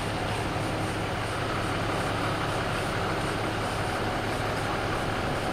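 Fire engine's diesel engine idling: a steady, even low drone.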